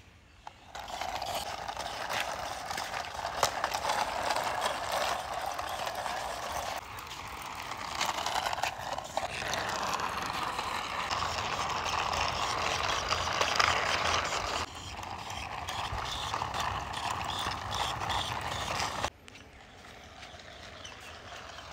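Plastic wheels of a toy scooter rolling along a rough concrete wall as it is pushed by hand, a continuous gritty rolling noise. The noise breaks off sharply a few seconds before the end and turns much quieter.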